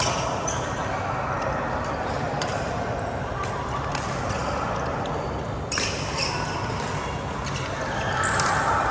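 Badminton rally: rackets striking the shuttlecock in sharp clicks about a second apart, the hardest hit just before six seconds in, with short high squeaks of shoes on the court floor, in an echoing hall.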